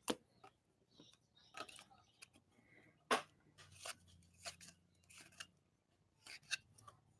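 Football trading cards being handled and slid through the hand: faint, scattered short swishes and clicks, a handful of them, with a louder one about three seconds in.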